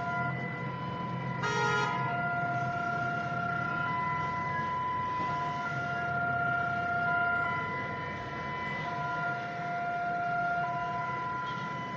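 Civil-defence warning sirens sounding in a national alarm test: several steady tones at different pitches that drop out and come back in turn. About a second and a half in, a brief harsher blast cuts across them.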